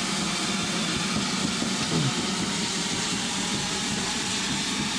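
Steady hiss from a standing GWR 64XX pannier tank steam locomotive at close range, with a brief falling tone about two seconds in.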